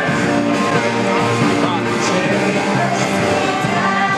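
Music with singing, a song with held notes that change pitch over a steady accompaniment.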